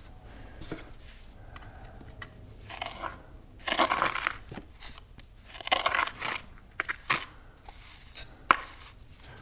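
Metal pointing tool scraping up fresh mortar: two rough, gritty scrapes about four and six seconds in, a few light clicks, and a sharp tap near the end.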